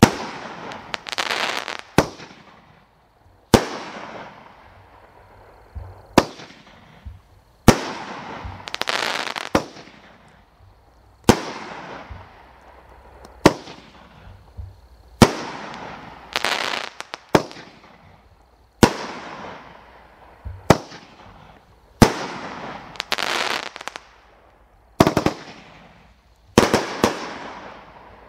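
A consumer multi-shot fireworks cake firing shot after shot, roughly one every two seconds. Each shot is a sharp bang, and most are followed by about a second of crackling from the bursting stars.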